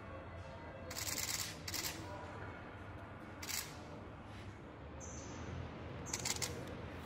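Paper-backed application tape being peeled and handled: four short rustles, about a second in, just before two seconds, midway and near the end. A steady low factory hum runs underneath.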